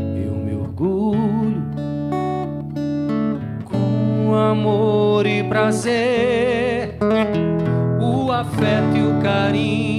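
A man singing a slow ballad in Portuguese with vibrato, accompanying himself on an acoustic-electric guitar playing sustained chords.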